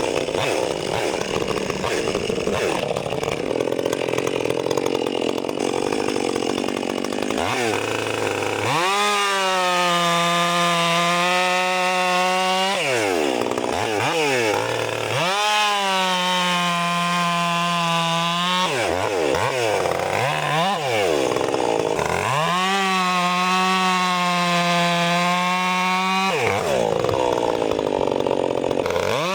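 Stihl MS 400 C two-stroke chainsaw, a Mastermind build, working through hardwood logs. For the first several seconds it runs loaded with a rough, noisy tone, then three times it holds a steady high-revving note at full throttle and drops back toward idle as the throttle is released.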